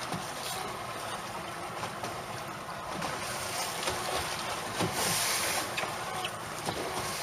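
Steady rushing wind and sea noise aboard a small open fishing boat, with scattered light knocks and a louder hiss about five seconds in.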